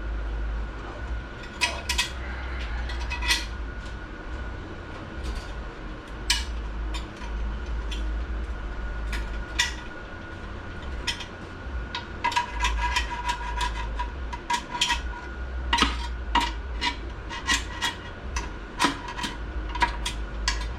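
Metal parts clinking and clicking against a Ford AOD transmission case as a snap ring is worked into its groove: many sharp clinks with a short ring, scattered at first and coming thick and fast in the second half, over a steady low hum.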